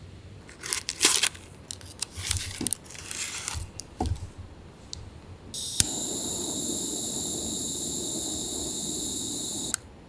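Handheld butane torch: gas hiss starts, a sharp click lights it, and the steady jet-flame hiss runs for about four seconds before cutting off suddenly. Before that, a few seconds of crinkling, tearing handling noises.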